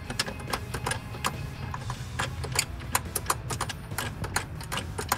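Ratchet wrench with a 10 mm socket clicking as it is swung back and forth to back a throttle body bolt out of the intake plenum. The clicks are quick and uneven, several a second.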